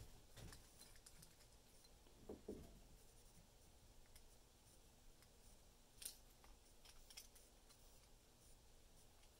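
Near silence with a few faint clicks and taps of small metal pen-kit parts being handled and fitted together by hand, the plainest one about six seconds in.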